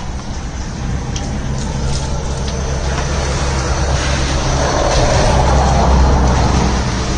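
A motor vehicle's engine running with a steady low hum, growing louder to a peak about six seconds in, with a rushing noise over it.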